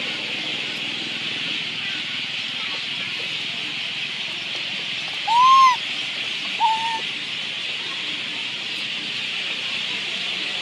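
Macaque giving tonal, arching coo calls: two calls about halfway through, the first louder and longer, the second short, over a steady high hiss.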